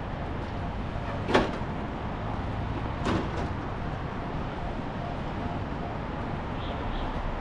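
Steady urban traffic noise, broken by two short, sharp sounds: a loud one about a second in and a second one about two seconds later.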